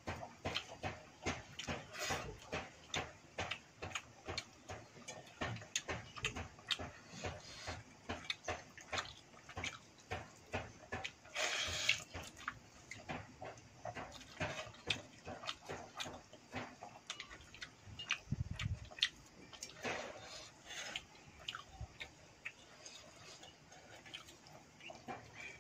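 Wet eating sounds of a person eating watery fermented rice (basi pakhala bhat) by hand: quick, irregular mouth smacks and chewing, several a second, with a louder, longer wet sound about twelve seconds in.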